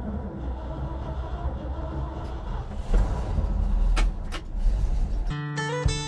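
Pickup truck driving off: a steady low engine and road rumble with a few sharp knocks partway through. Background music comes in near the end.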